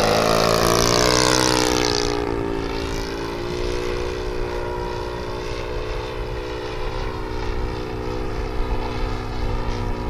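Model airplane's OS 52 four-stroke glow engine at speed in a low, fast pass. The engine note is loudest and drops in pitch as the plane goes by in the first two seconds, then settles to a steadier, quieter running note as it climbs away.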